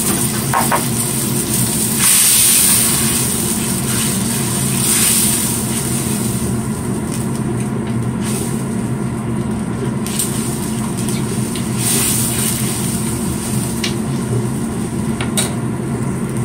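Beef and radish broth bubbling in a steel wok over a gas burner: a steady hiss with a low hum under it. A black ladle stirring the pot knocks or scrapes against the wok a few times in the second half.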